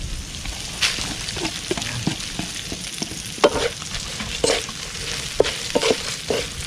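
Wooden spatula scraping and tossing prawns with crispy fried garlic in a metal wok, in irregular strokes about once a second, over a steady sizzle.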